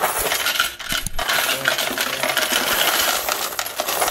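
A heap of coins poured from a cardboard box into the hopper of an electric coin counter, a continuous dense clatter of coins sliding and clinking against each other, with a brief break about a second in.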